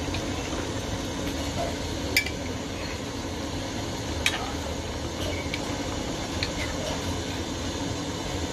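Metal spoon stirring chicken in a steel karahi, with a few sharp clinks of the spoon against the pot over a steady hiss.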